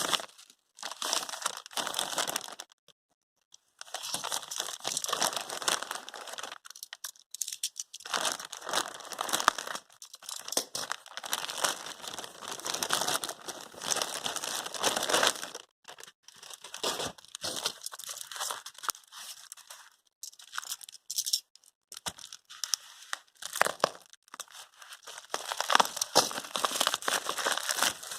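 Packaging being handled and unwrapped: irregular bursts of crinkling and tearing, with brief pauses, the longest just before the 4-second mark.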